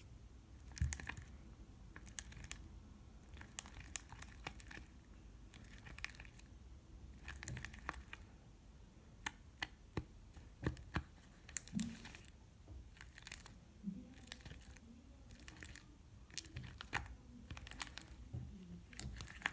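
Thick face-mask-and-salt slime being stirred with a mixing tool: irregular sticky clicks, crackles and scrapes.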